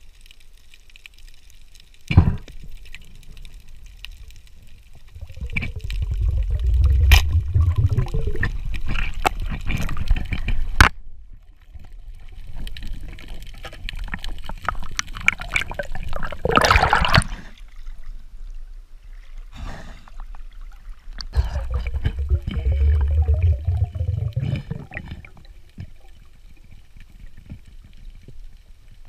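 Water gurgling and sloshing around an underwater camera, with two long low, noisy stretches several seconds each and scattered knocks and clicks.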